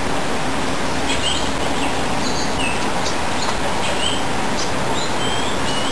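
Short, high bird chirps repeating every second or so over a steady background of noise.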